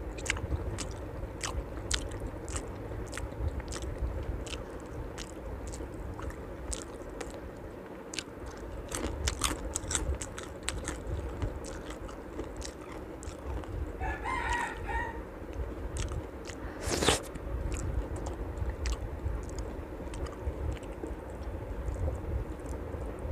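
Close-miked chewing and eating: a steady run of small wet clicks and crunches from the mouth, over a low steady rumble. About two-thirds through there is a brief, higher warbling sound, and a few seconds later one sharp click that is louder than the rest.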